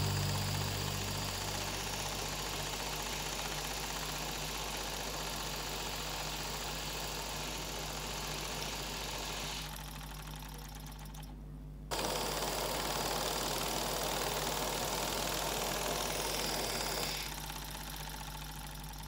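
Miniature brass oscillating-cylinder steam engine running fast on steam from its small vertical boiler, with a steady mechanical hiss and clatter. The level falls away about halfway through, comes back, and drops again near the end.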